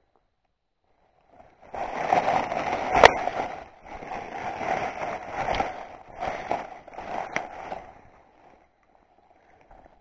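Dry fallen leaves and twigs rustling and crackling as a hand sweeps through the leaf litter close to the microphone, with a few sharp snaps. It starts about a second and a half in and dies away after about six seconds.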